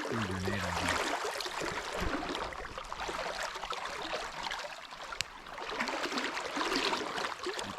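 River water flowing steadily, with a short low voice-like sound at the start and a single sharp click about five seconds in.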